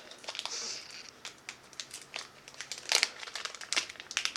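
Plastic wrapping of a wax tart package crinkling and crackling in irregular bursts as it is handled, with a few louder crackles about three seconds in and near the end.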